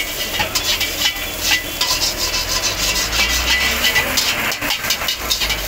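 Metal spatula scraping and stirring egg in a wok over a gas burner: a quick, irregular run of scrapes over frying sizzle, as the egg is scrambled for egg chowmein.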